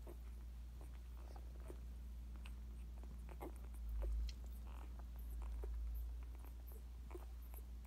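Newborn Great Pyrenees puppies suckling at their mother: soft wet smacking clicks scattered throughout, with a few faint short squeaks, over a low steady hum. There is a brief low rumble about four seconds in.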